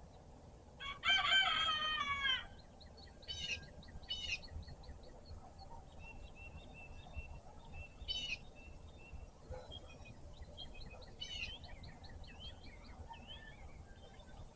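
A rooster crows once, about a second in, one call lasting about a second and a half and the loudest sound here. Small songbirds chirp and call throughout, with runs of short repeated chirps and several sharp calls.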